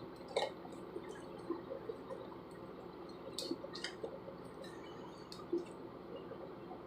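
Slime being kneaded and stretched by hand, with gel worked into it: faint, scattered wet clicks and squelches.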